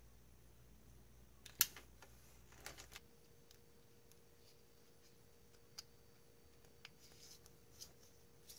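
Faint handling noise of wires and small tools on a workbench: one sharp click about one and a half seconds in, a couple of lighter clicks a second later, then a few soft ticks over low room tone.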